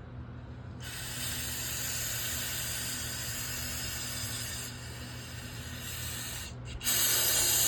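Aerosol brake cleaner spraying onto a dirt bike's oil strainer screen to clean it: one long steady spray of about six seconds, then a short pause and a second, louder spray near the end.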